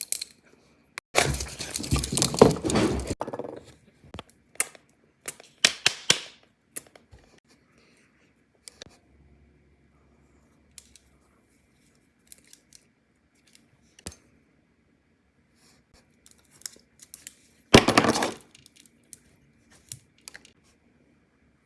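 Skincare products and their packaging being handled: a noisy stretch of about two seconds starting about a second in, scattered clicks and taps, and a second, shorter noisy burst near the end.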